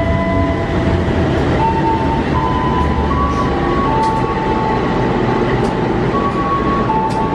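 GE CC206 diesel-electric locomotive running as it rolls slowly past at close range, hauling passenger coaches. A steady low rumble with a few light clicks from the running gear.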